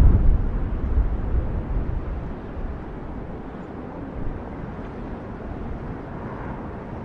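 Deep rumbling of the erupting Cumbre Vieja volcano on La Palma, loud at first and easing over the first two or three seconds to a lower, steady rumble.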